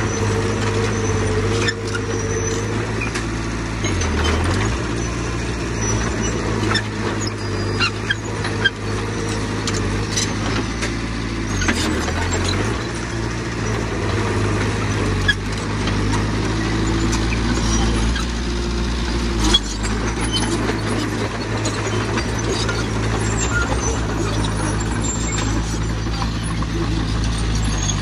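Heavy diesel engine of a Komatsu bulldozer running steadily under load while pushing rubble. Its pitch briefly dips twice, about four and twelve seconds in. Short metallic knocks and clanks are scattered throughout, the sharpest about two-thirds of the way through.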